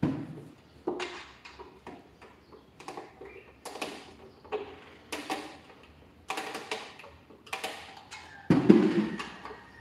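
Hand taps on a newly fitted 12-inch Remo drum head on a tom as its tension rods are tightened: short drum knocks about once a second, the loudest and deepest near the end.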